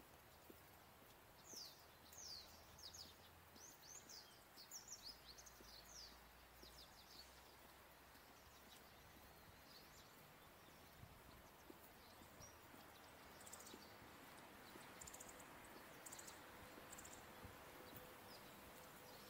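A bird chirping faintly: a quick run of short, high, falling chirps in the first several seconds, then a few fainter calls later, over a faint steady hiss.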